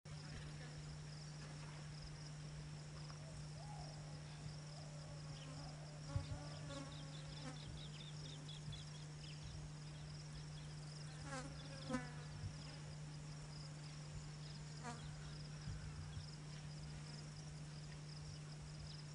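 Wild insects keep up one steady, high-pitched drone. Over it run a low steady hum and a few short bird calls, around six and twelve seconds in.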